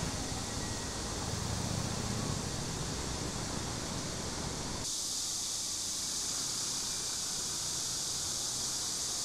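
Street ambience: a steady low rumble of passing traffic. About five seconds in it changes abruptly to a steady high-pitched hiss.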